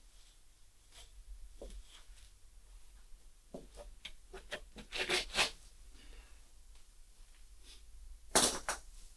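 Workshop clatter of hand tools and metal parts being handled: a quick run of clicks and knocks in the middle, then a short, loud clatter near the end.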